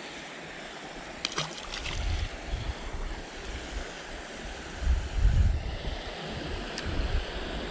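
Wind buffeting the microphone in gusts, loudest about five seconds in, over a steady rush of creek water.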